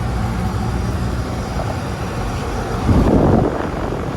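Outdoor air-conditioner condensing units running: a steady fan rush over a low compressor hum. About three seconds in there is a brief, louder rush of noise.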